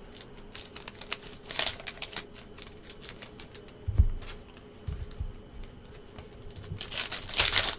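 Trading cards being handled and flipped through, making quick light clicks and ticks as card edges snap against each other. There is a louder rustle near the end and a couple of dull thumps against the table in the middle.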